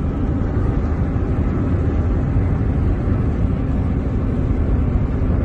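Steady low rumble of a car's engine and road noise in highway traffic.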